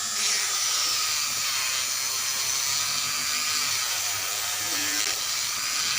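A small electric motor running steadily, with a high-pitched whine over a constant hiss and a low hum.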